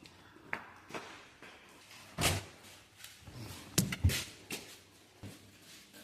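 A series of irregular knocks and thuds, like doors or lids being handled, with the loudest thud about two seconds in and a quick cluster of knocks near the four-second mark.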